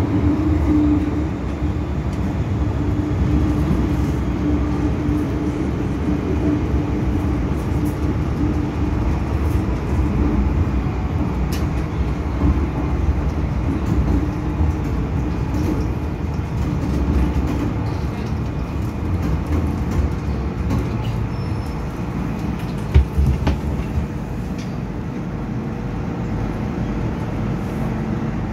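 Inside a Hong Kong MTR M-Train, a Metro-Cammell electric multiple unit, on the move: a steady low rumble of wheels and running gear with a faint constant hum. A single short knock comes about 23 seconds in.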